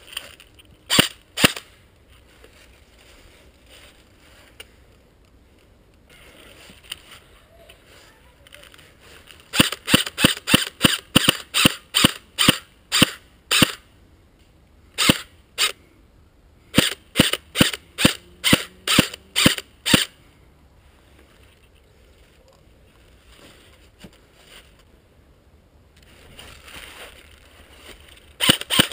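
Airsoft electric rifle firing single shots: two about a second in, then strings of quick shots, about three a second, through the middle, and another string starting near the end.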